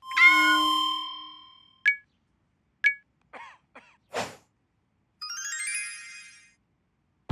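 Cartoon sound effects: a ringing bell-like ding at the start, two short pings about a second apart, a few quick chirps and a swish, then a rising run of sparkly chimes a little past the middle.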